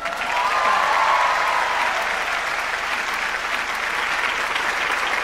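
Large seated audience applauding steadily in a big hall, with a voice or two calling out in the first couple of seconds.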